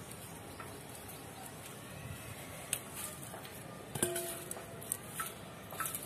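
Dry tomato leaves and stems rustling as a hand works through the plant picking ripe cherry tomatoes, with a few sharp snaps, the loudest about four seconds in, followed by a brief steady tone.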